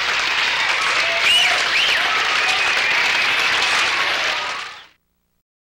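Large crowd cheering and applauding, with scattered shouts and whistle-like calls; the sound fades out near the end.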